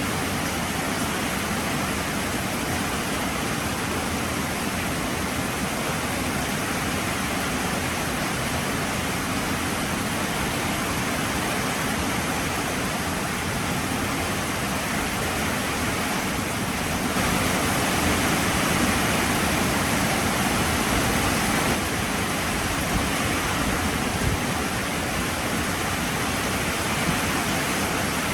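Heavy rain pouring steadily, an even hiss that swells a little louder for a few seconds about seventeen seconds in.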